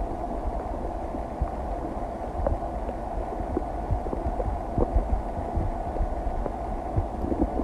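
Stomach digesting: a steady hum with irregular soft pops and low thumps from the gut.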